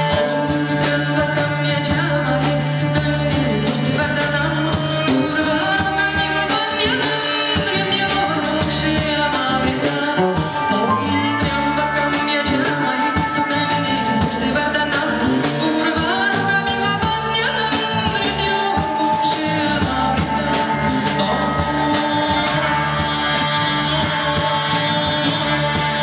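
Rock band playing: drum kit, held bass notes and electric guitar, with a voice that sings or wails over them.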